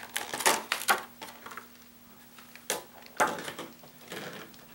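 Plastic blister pack of a chatterbait lure being handled and opened by hand: a string of crinkles and clicks, with the sharpest crackles in the first second and again about three seconds in.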